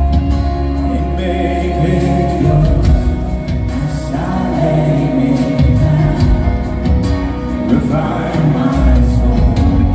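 Gospel worship music with group singing over sustained low bass notes; the sung lines swell upward about four seconds in and again near eight seconds.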